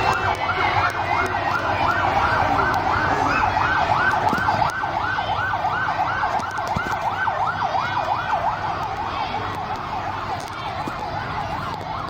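Emergency vehicle siren yelping in fast sweeps, about three rising-and-falling cycles a second, easing slightly near the end.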